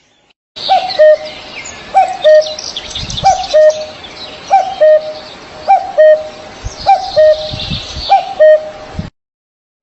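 Bird calls: a low two-part call repeated seven times, about once a second, over a background of high twittering chirps. The sound cuts off suddenly near the end.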